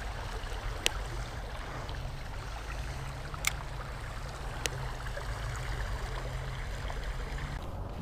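A small creek's flowing water makes a steady noise over a low rumble. Three short, sharp clicks come through it, about a second, three and a half seconds and four and a half seconds in.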